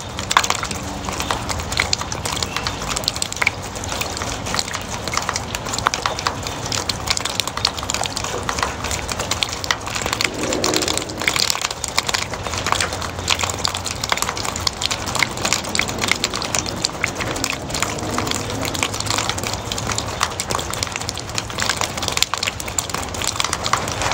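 Steady rain, water dripping and splashing off a roof edge, heard as a dense, even crackle of many small drops.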